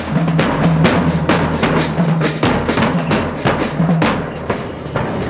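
Marching drums playing a cadence: a bass drum struck with a mallet and sharper snare-like strikes, about three or four hits a second, thinning out near the end.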